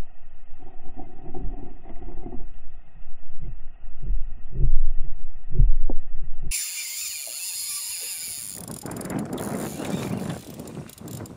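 Muffled underwater sound picked up through an action-camera housing: a low rumble with irregular dull thumps, the loudest about four and a half and five and a half seconds in. About six and a half seconds in it switches suddenly to open air, and from about nine seconds on there is a loud rushing of wind and water.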